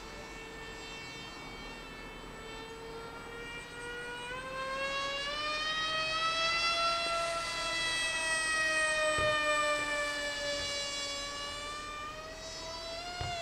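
Electric motor and propeller of a Z84 RC flying wing whining in flight. The pitch rises and the sound grows louder from about four seconds in, holds for a few seconds, then sinks and fades, climbing again near the end.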